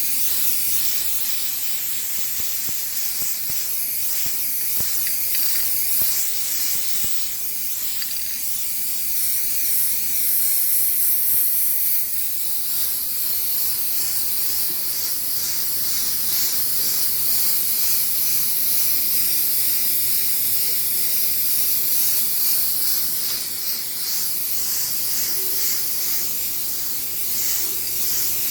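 Aerosol spray-paint can for metal hissing steadily as a coat of paint is sprayed on, held down almost without a break.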